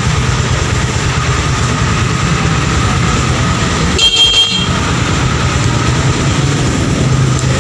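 Rusi Mojo 200 motorcycle engine idling steadily, with a short horn beep about four seconds in from the handlebar horn button.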